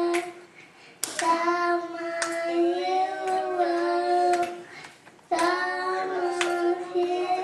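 A young boy singing into a handheld microphone: long, held, slightly wavering notes in two phrases, the first starting about a second in, the second after a short break, with a few sharp clicks.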